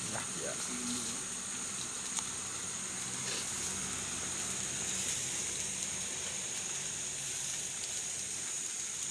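Electric stand fan running steadily close by, blowing air over the glowing charcoal under rows of satay skewers, with a steady hiss.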